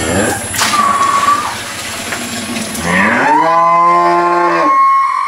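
Cow mooing: one long call about three seconds in, rising at first and then held for over a second.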